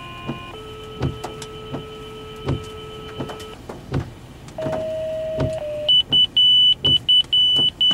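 Fire department paging tones over a radio scanner. A steady tone of about three seconds is followed by a shorter second tone, then a loud, rapid string of high alert beeps. The page calls out the volunteer firefighters. Faint regular clicks, about one every three-quarters of a second, run underneath.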